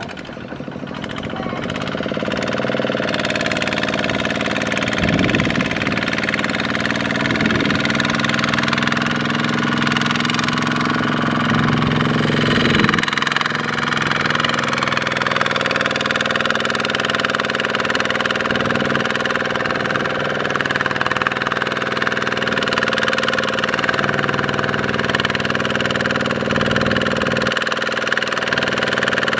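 Kubota RT155 walking tractor's single-cylinder diesel engine running steadily under load, hauling a trailer of rice sacks through mud. It grows louder over the first few seconds, then holds level, with a few brief changes in pitch.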